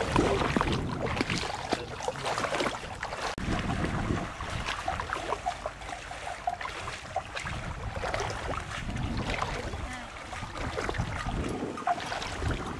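Wind buffeting the microphone in gusts, with a scatter of small rustling and splashing clicks from wading through shallow floodwater and brush.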